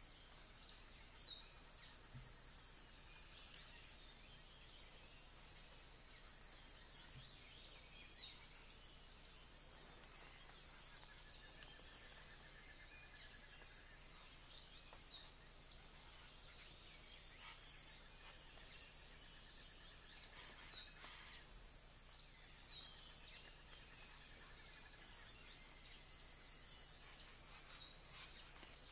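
Steady high-pitched drone of a tropical forest insect chorus, with scattered short falling chirps and, around the middle, two faint lower trills.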